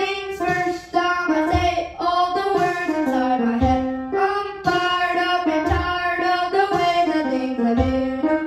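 A boy singing a melody into a microphone to his own upright piano accompaniment, over a programmed beat with a low thud about every two seconds.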